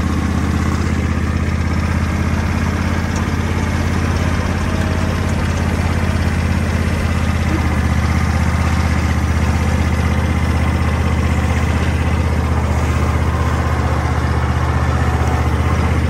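Tractor engine running at a steady speed, a constant low-pitched hum.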